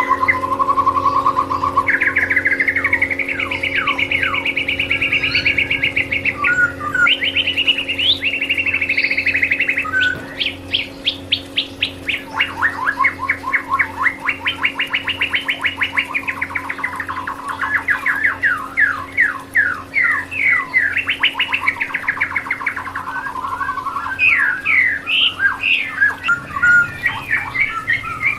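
White-rumped shama (murai batu) singing continuously: varied phrases of warbles, fast trills and long runs of rapid repeated sharp notes, over a steady low hum.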